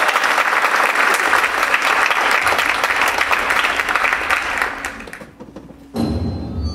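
Audience applauding, the clapping dying away about five seconds in. Low, sustained music comes in near the end.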